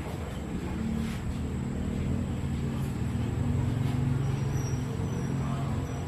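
A motor vehicle's engine running close by, a low steady hum that grows louder toward the middle and drops away near the end, as when a vehicle passes.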